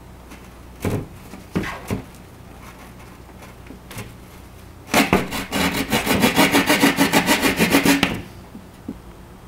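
Drywall jab saw cutting through sheetrock by hand. A few single scrapes come first, then about three seconds of fast back-and-forth sawing strokes, several a second, in the middle.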